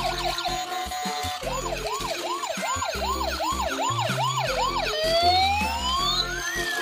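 Electronic toy siren sounds, likely from the police track set's sound unit: a quick up-and-down wail repeating about two and a half times a second, then a long rising sweep about five seconds in. A simple electronic tune plays underneath.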